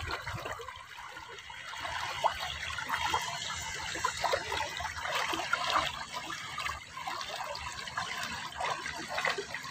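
Water trickling and burbling as it flows along a small concrete irrigation ditch, a steady run of little splashy gurgles.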